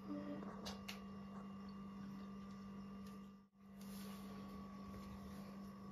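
A faint, steady low hum, with a couple of faint clicks about a second in; it drops out for an instant a little past halfway.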